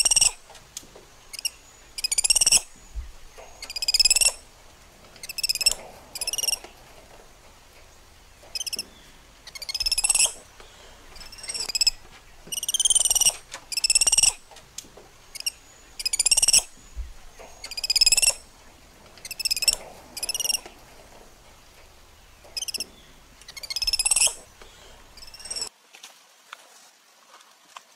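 Baby macaque giving high-pitched, whistling cries, each about half a second long, repeated every second or two; they stop near the end.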